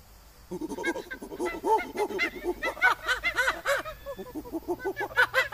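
Macaques calling: many short, arching squeals and coos overlapping in quick succession, starting about half a second in.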